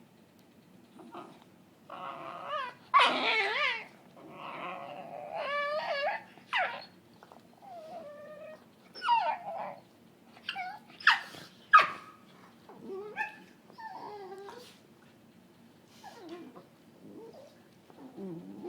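A dog making a long string of odd, gremlin-like play vocalisations: warbling whines and growly yips that waver up and down in pitch. The loudest calls come about three seconds in, with short sharp yips a little past the middle.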